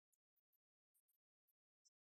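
Near silence: an essentially empty audio track with only a few very faint, brief ticks.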